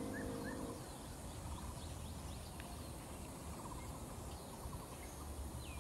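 Faint outdoor ambience: a low steady rumble with scattered small bird chirps and short trills. Background music fades out within the first second.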